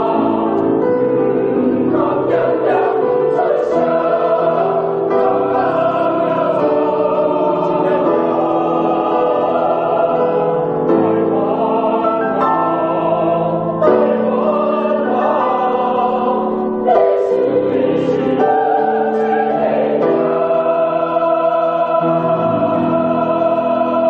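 Closing music: a choir singing slow, held chords.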